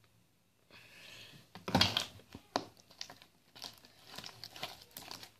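Handling of a plastic Tide laundry-detergent bottle: faint rushing noise, then a sharp knock about two seconds in, followed by a string of crinkly, crackling clicks as the plastic is gripped and moved.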